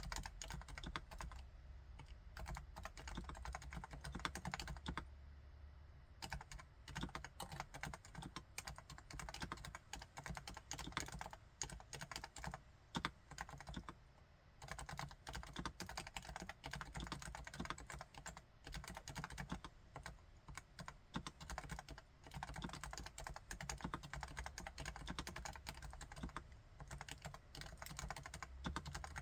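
Typing on a Topre Realforce R4 full-size keyboard with electrostatic capacitive (Topre) switches: a steady stream of quiet keystrokes, easing off briefly about five and again about fourteen seconds in.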